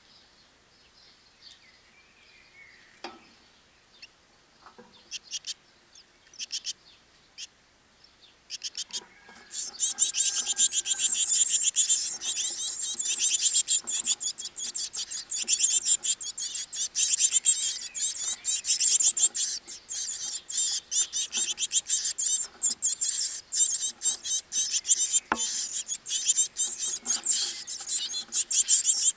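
Great tit nestlings begging: a few scattered high chirps, then from about ten seconds in a dense, continuous chorus of rapid high-pitched cheeping while an adult great tit is at the nest entrance. One soft knock near the end.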